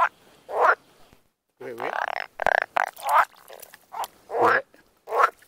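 Pond frogs croaking: a quick series of about ten short calls, one after another with brief silent gaps, as the frogs answer each other.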